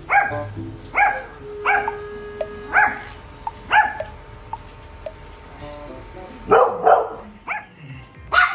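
Dog barking in sharp, high barks about once a second, then a quick pair of barks about two-thirds through and another bark near the end: warning barks at an unfamiliar robot vacuum cleaner. Background music plays underneath.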